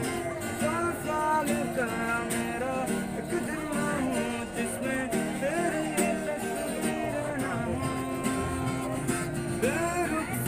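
Acoustic guitar strummed steadily, with a voice singing a Hindi film song over it.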